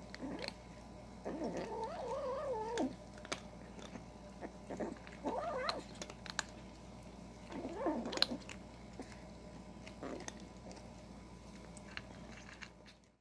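Black-and-white kitten growling while it eats dry cat food, a wavering growl that comes and goes. The longest growl comes about a second and a half in, with shorter ones near the middle, around eight seconds and around ten seconds. Between the growls are short clicks of crunching kibble. Growling over the bowl like this is typical of a kitten guarding its food.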